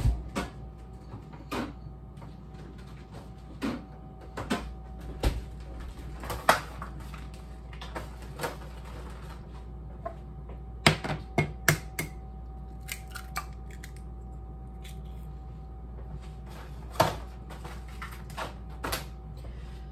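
Kitchen handling sounds: scattered clicks and knocks of dishes and cupboards, bunched about eleven seconds in, with a ceramic mug set down on the counter near the end, over a faint steady hum.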